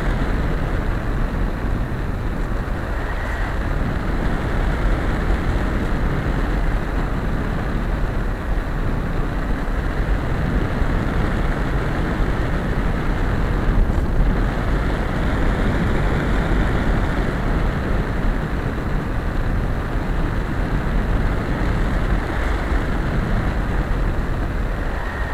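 Steady, muffled rushing noise from a camera mounted on a Bixler RC plane in flight: airflow and airframe noise over the small camera's microphone, with no distinct motor whine standing out.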